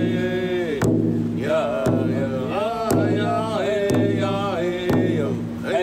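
Chanted song: a singing voice gliding up and down in pitch over a low held drone, with a steady drum beat about once a second.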